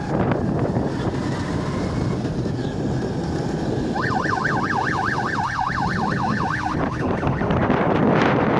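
Steady rumble and wind noise of a ride along a road, with an electronic siren-style horn warbling rapidly up and down for nearly three seconds from about four seconds in.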